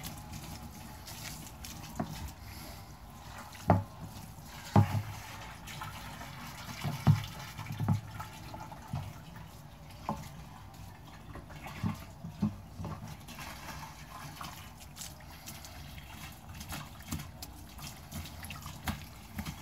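Garden hose spraying water into a plastic fuel tank through its sump hole, the water splashing and sloshing inside the tank, with a series of short, sharp thumps now and then.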